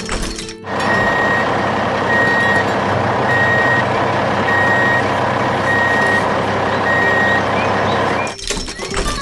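Heavy truck engine running steadily, with a reversing alarm beeping about once a second over it. The sound briefly breaks into a sharp clatter near the start and again near the end.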